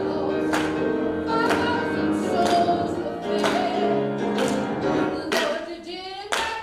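Church praise team singing a gospel song, with a sharp beat about once a second.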